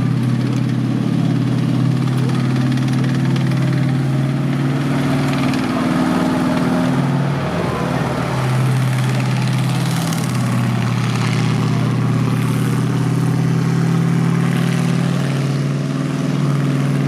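M4A1 Sherman tank's Continental R975 nine-cylinder radial engine running steadily, with a brief change in its note about seven seconds in.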